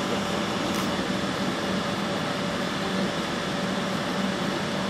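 Southern Class 377 Electrostar electric train standing at the platform, its ventilation and auxiliary equipment giving a steady hum with a low drone and a fainter higher tone.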